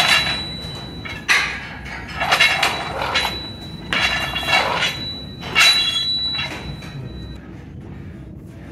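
Loaded barbell with metal plates clanking and ringing as it is pulled up and lowered in repeated power cleans: a series of sharp metallic clanks about a second apart, dying down near the end.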